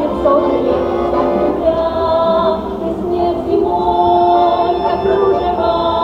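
A women's folk choir singing a folk song together in harmony, holding long notes.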